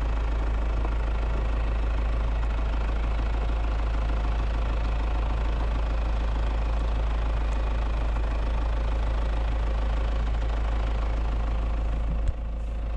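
Car engine idling steadily with a heavy low rumble, heard from inside the car. A single brief knock just before the end.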